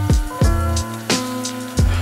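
Hip-hop backing music: a steady beat of deep kick drums under held notes, with a man's short remark near the end.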